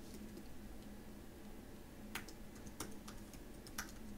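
Keystrokes on a computer keyboard while typing: a few separate, irregular key clicks, mostly in the second half, over a faint steady hum.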